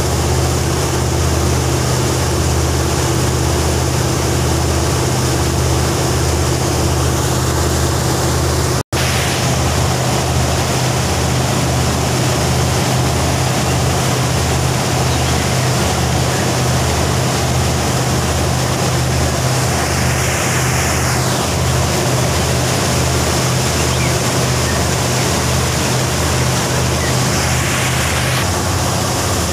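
Engine of a large wooden river taxi boat running steadily under way, a low drone with the rush of its churning wake alongside. The sound drops out for an instant about nine seconds in.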